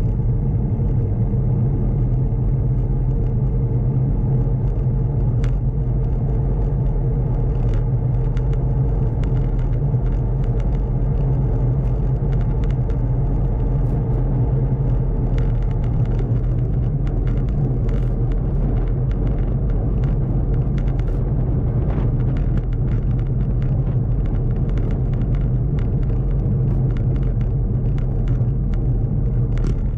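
Steady rumble of a bicycle rolling along coarse chip-seal asphalt, heard through a camera mounted on the bike. Tyre and road noise runs without a break, with scattered small clicks and rattles.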